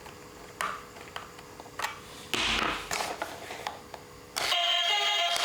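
Plastic toy clicking and being handled, then a duck toy car's electronic music tune starting up near the end.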